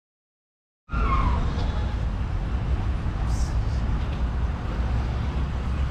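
Steady low rumble of road traffic or a running vehicle, starting abruptly about a second in.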